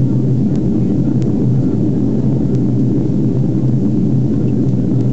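Steady cabin noise of a Boeing 767 in flight, heard from a window seat over the wing: jet engine drone and airflow as an even, low rumble.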